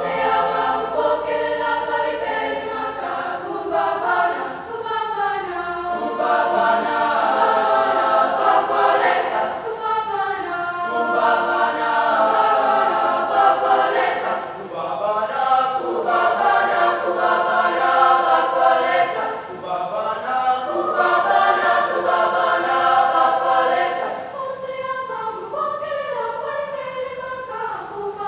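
Mixed-voice school choir singing in parts, phrase after phrase, with short breaks for breath between phrases.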